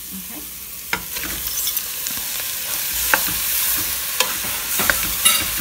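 Raw cubed chicken breast going into vegetables sautéing in butter and oil in a metal pressure cooker pot: a frying sizzle that grows louder from about a second in, with several sharp clinks and scrapes of the fork and spoon against the pot as the chicken is pushed in and stirred.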